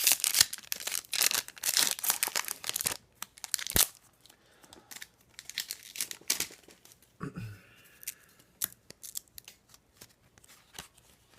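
A hockey card pack wrapper being torn open, a dense crinkling rip for about the first three seconds. After that come scattered crinkles and ticks as the wrapper and cards are handled.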